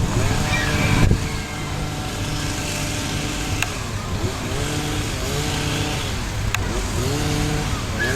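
A vehicle engine running steadily, its pitch rising and falling several times.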